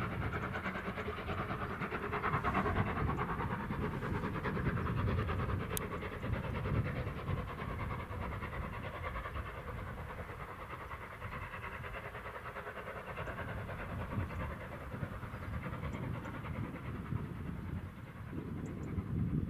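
LMS Jubilee Class three-cylinder steam locomotive 45596 Bahamas working hard up the gradient with its train, the sound easing off after several seconds as it draws away. Wind rumbles on the microphone throughout.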